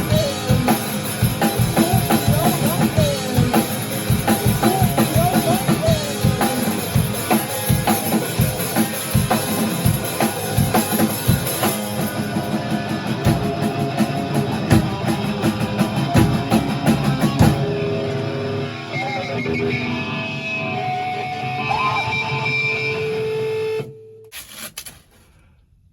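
Rock music with guitar and a drum kit; about two-thirds through, the drums drop out and held notes ring on, then the music stops abruptly about two seconds before the end.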